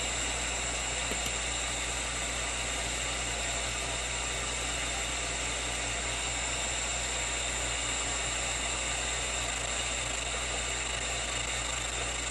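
Steady FM static hiss from a small self-scanning FM radio kit playing through a portable speaker, the receiver seeking between stations without locking onto one.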